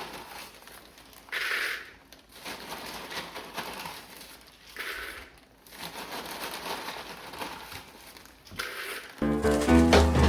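Dry breakfast cereal (Rice Chex and Lucky Charms) being poured and scooped into measuring cups, with the cereal bags handled, louder in two short spells. Music starts near the end.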